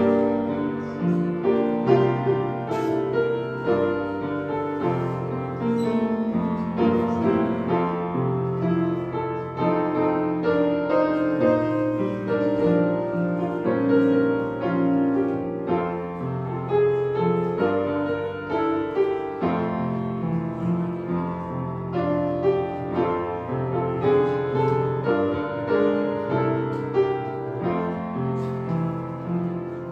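Piano playing a slow piece of held chords under a melody, getting quieter near the end.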